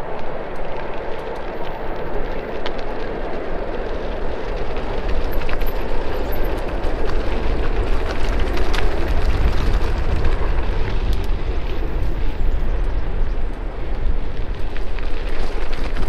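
Rushing, rumbling wind noise on the camera microphone and bike tyres rolling over a dry dirt trail, with scattered small clicks and rattles, getting a little louder about six seconds in.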